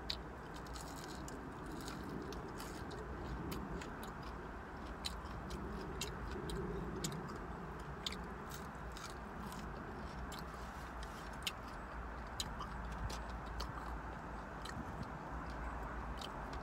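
A person chewing fried fish and french fries close to the microphone, with many small irregular mouth clicks and smacks, over a steady low background hum.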